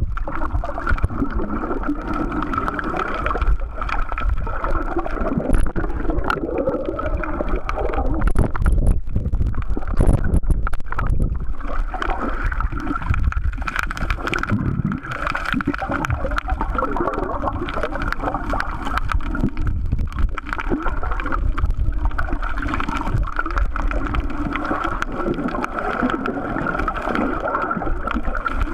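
Muffled underwater rumble and gurgling of water moving around a camera held below the surface, with a steady mid-pitched drone and wavering tones running under it.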